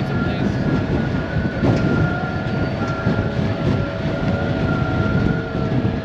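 Seattle–Bainbridge Island ferry under way: a steady low rumble of the ship's engines and the water, with a faint steady whine over it.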